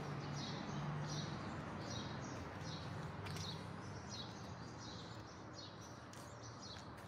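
A bird chirping over and over, a short falling note about three times every two seconds, over a steady low hum.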